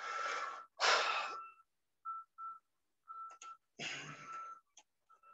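Breath noise on a microphone: two loud breaths in the first second and a half and a weaker one about four seconds in, with a few faint clicks between. A steady high whistle-like tone rides on each sound.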